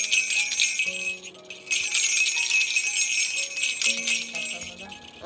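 Jingle bells of a handheld baby toy rattle shaken in two bouts, a short pause about a second in, stopping just before the end. Soft background music with sustained notes plays underneath.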